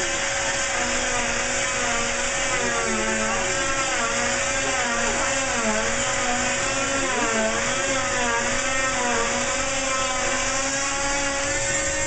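Oscillating cast saw running continuously as it cuts through a cast: a steady mechanical whine with a constant tone and wavering overtones.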